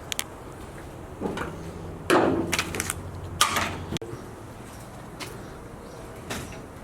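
A few sharp clicks and short rustling knocks of things being handled, with a faint steady low hum underneath.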